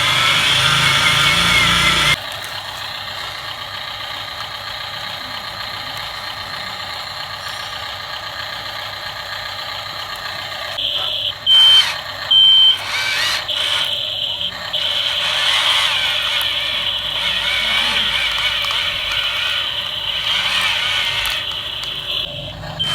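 Small electric gear motors of toy RC vehicles whirring steadily, a little quieter after about two seconds, with two short electronic beeps about a second apart midway through.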